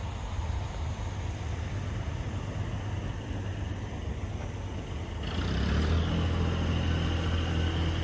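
A motor vehicle engine running steadily as a low rumble. About five seconds in it grows louder into a steady hum with a thin high whine above it.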